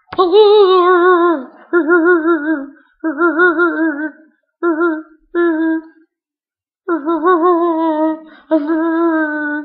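A single voice humming wordless held notes with a strong wobbling vibrato, in several short phrases with a pause a little past the middle.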